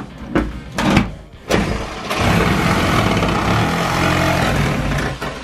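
A few short knocks, then a Makita corded reciprocating saw (sawzall) starts about two seconds in and runs steadily, cutting into a cabin wall for about three seconds before stopping near the end.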